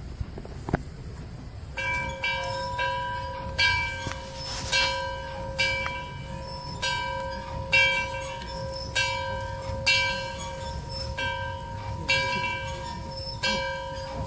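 A large bell struck repeatedly, about once a second. Each stroke leaves a ringing tone that carries on into the next. A single sharp knock comes just before the ringing starts.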